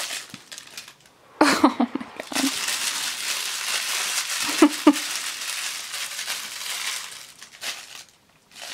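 Crinkling and rustling of a plush puppy toy being tugged and waved during play with a miniature schnauzer puppy, dense from about a second and a half in until near the end. Two short vocal sounds break in, one about a second and a half in and one about five seconds in.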